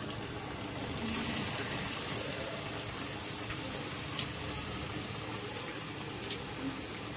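Buckwheat-battered sandwiches deep-frying in hot oil in a kadhai: a steady sizzle with scattered crackles, growing louder about a second in.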